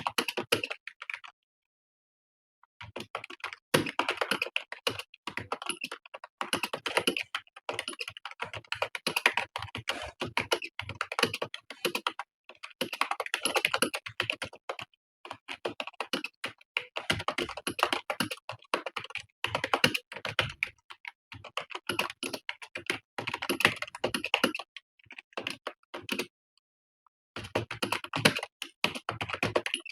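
Fast, continuous typing on a computer keyboard: keystrokes clatter in long runs, with a break of about a second and a half near the start and a shorter one near the end.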